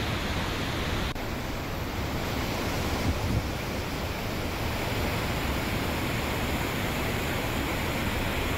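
Floodwater rushing steadily in a swollen river in full spate.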